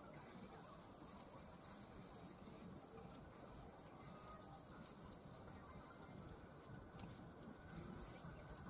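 Near silence, with faint, short, high-pitched insect chirps repeating irregularly.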